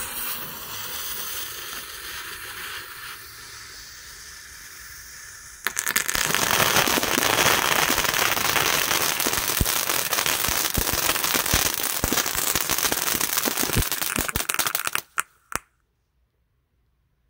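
Weco Blue Star youth firework fountain: a steady fuse hiss for about five seconds, then the fountain catches with a sudden loud, dense crackling spray full of sharp pops that runs about nine seconds and stops abruptly, with a couple of last pops.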